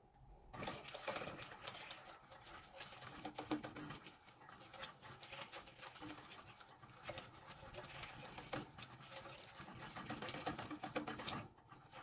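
Pink silicone whisk stirring rice in an enamel pot, making faint, irregular scraping and clicking against the pot's bottom and sides, stirred so the rice won't stick.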